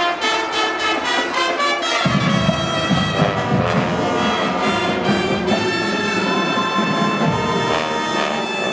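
A marching band's brass section playing, with trumpets and trombones on sustained chords. About two seconds in, the lower instruments come in and fill out the bottom of the sound.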